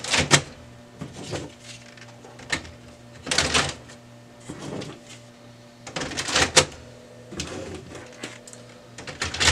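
Toner and drum cartridges being slid back into a Brother MFC-9125 colour laser printer: short bursts of plastic scraping and clicking a few seconds apart, the two biggest about three and a half and six and a half seconds in.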